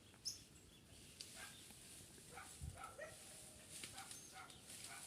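Near silence: faint outdoor ambience with a few soft ticks and short faint chirps.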